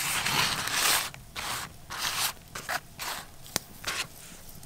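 Crumpled baking paper crinkling and rustling as a hand presses herbs onto a raw venison joint wrapped in it: one long crinkle at first, then several shorter ones, with a sharp click about three and a half seconds in.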